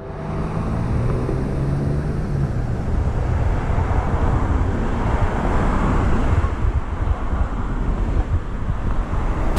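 Steady low outdoor rumble with a hiss over it, starting suddenly at a cut.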